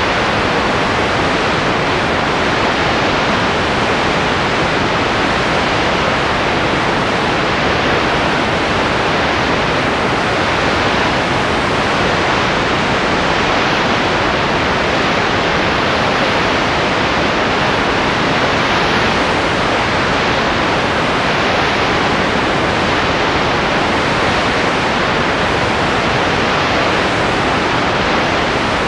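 Loud, steady hiss with no other sound, unchanged across the picture's cuts: the empty sound track of a silent home-movie film transfer.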